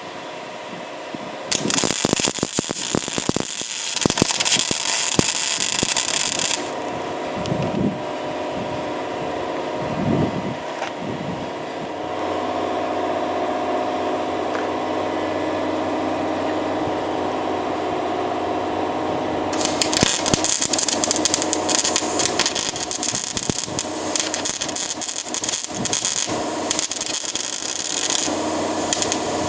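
Welder arc crackling as weld is laid onto a broken-off exhaust manifold bolt, building up metal on the stub so it can be extracted. There are two stretches of crackle: about five seconds near the start and about ten seconds from two-thirds of the way in. A steady hum sits between them.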